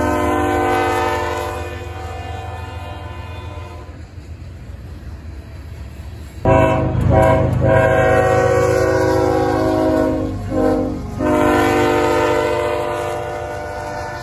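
Diesel freight locomotive's air horn sounding a multi-note chord as a horn salute, over the low rumble of the passing train. The first blast fades out over the first few seconds. After a pause the horn starts again abruptly, breaks off briefly a few times, then holds and fades near the end.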